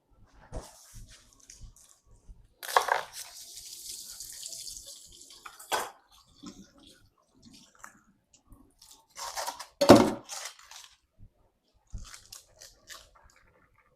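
Kitchen work sounds: a few seconds of running water about three seconds in, with scattered knocks and, near the ten-second mark, a burst of louder clattering.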